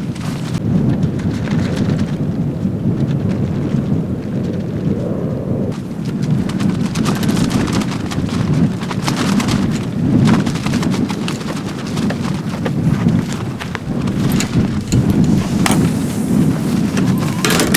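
Strong wind buffeting the microphone: a loud low rumble that swells and eases in gusts, with scattered sharp clicks and rustling over it.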